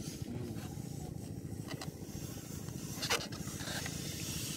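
Long modelling balloon being blown up by mouth, breath pushing into the rubber, with a couple of short sharp sounds about two and three seconds in, over a steady low rumble.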